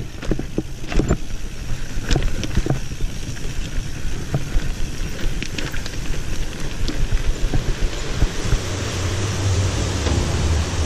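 Commencal Meta AM 29 mountain bike rolling fast down a rough dirt singletrack: tyre noise and wind on the microphone, with quick clacks and rattles from the chain and frame over the bumps in the first few seconds. The noise turns into a steadier low rumble in the last couple of seconds.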